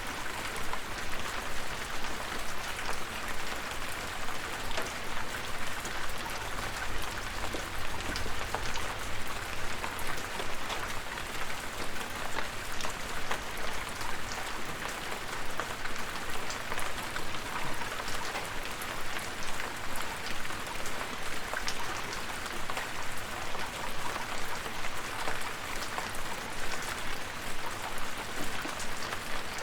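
Steady rain, with many small drops pattering on a hard surface.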